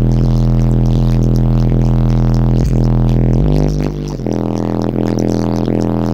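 Bass-heavy music played loud through two Resilient Sounds Platinum 15-inch subwoofers powered by a Crossfire C7 4K amplifier, heard inside the car's cabin. Deep sustained bass notes shift to a new note about three and a half seconds in, with a brief drop in loudness.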